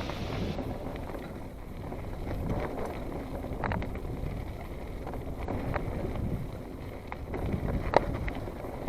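Mountain bike rolling down a dirt singletrack: steady tyre rumble and wind on the microphone, with a few sharp clicks and rattles from the bike.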